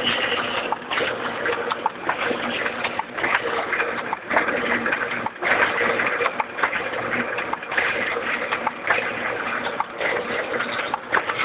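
Adast Dominant 724 offset printing press running: a steady mechanical noise with a faint hum, many small clicks and a loosely repeating swell.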